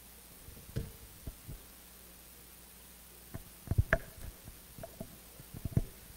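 Handling noise from a handheld microphone: scattered low thuds and knocks, a few about a second in, a dense cluster around four seconds and more near the end, over a faint steady hum.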